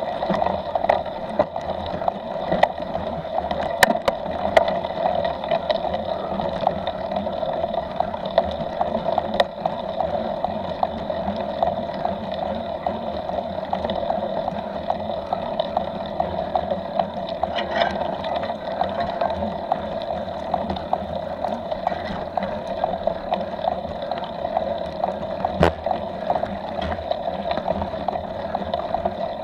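Steady rushing noise of a mountain bike riding a forest dirt trail, picked up by a camera on the bike: wind and tyre rumble, with scattered sharp knocks and rattles from bumps.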